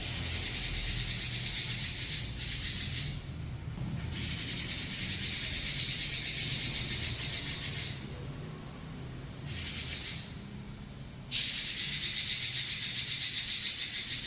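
Pekin robin (red-billed leiothrix) singing long, fast rolling trills, high-pitched and rapidly pulsing, three long rolls of about three to four seconds each with shorter bursts in the gaps.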